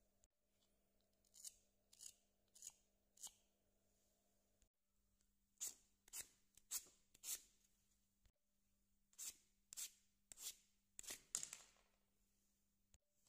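Short, quiet rasping strokes of a small wooden carving being worked by hand, cut with a carving knife and rubbed on sandpaper wrapped around a block. The strokes come about one or two a second in three short runs, the last a quick flurry near the end.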